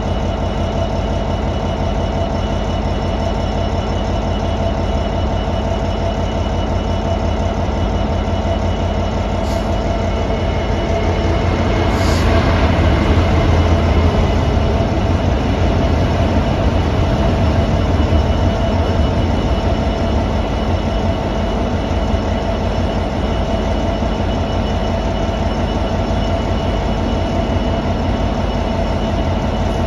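Class 66 diesel locomotive's EMD two-stroke V12 engine running with a steady drone close by. It swells louder for several seconds midway, as the coal trains pass.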